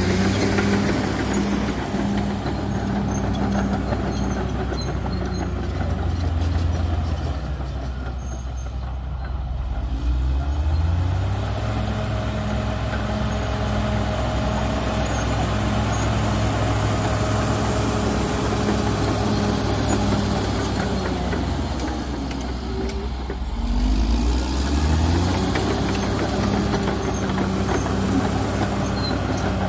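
Cat D6R XL bulldozer's diesel engine working under load. Twice its revs drop and then climb back up, and a thin high whine rises and falls with it.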